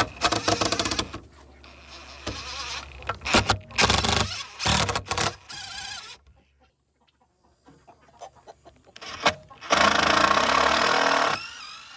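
DeWalt 20V MAX cordless impact driver backing screws out of a wooden board, in several short bursts of rapid hammering rattle and one longer burst near the end.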